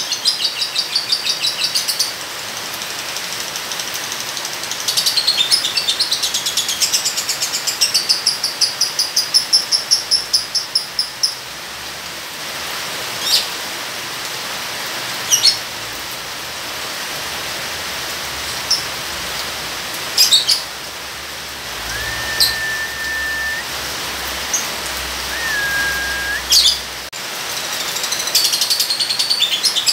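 Lovebird's rapid chattering trill (ngekek): runs of fast repeated high chirps at the start, through the middle and again near the end, with single sharp chirps between them, over a steady hiss of rain.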